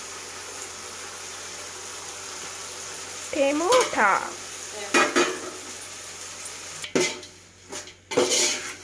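Food sizzling as it fries in a large aluminium pot, with a steel ladle clinking against the pot once about five seconds in and then clanking and scraping repeatedly near the end as the masala is stirred in.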